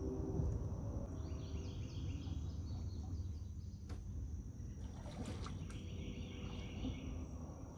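Quiet river ambience: a steady high insect drone over a low rumble, with a few faint bird chirps and a single light knock about four seconds in.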